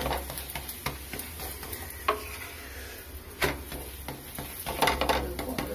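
Stuffed chana dal puri sizzling in oil in a pan, while a wooden spatula presses it and scrapes against the pan in a few sharp strokes.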